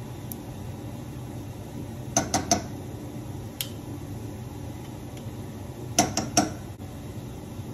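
A metal spoon clinks against a glass jar and the rim of a cooking pot as garlic paste is scooped out and tapped off. There are two quick groups of about three clinks, one about two seconds in and one near the end, with a single click between them, over a steady low hum.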